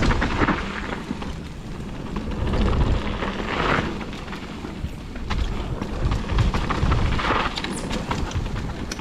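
Wind rushing over a GoPro microphone and a mountain bike rattling over rough dirt trail at speed, swelling and easing every few seconds, with scattered clicks and knocks.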